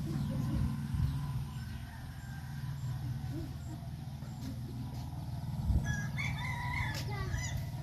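A rooster crowing once, about six seconds in, over a steady low rumble.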